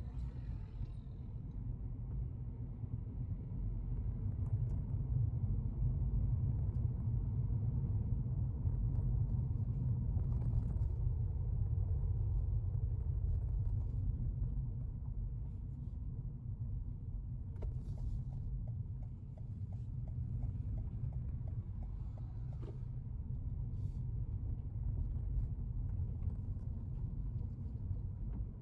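Car on the move with a steady low rumble of road and engine noise, swelling a little and easing off, with a few faint clicks about two-thirds of the way through.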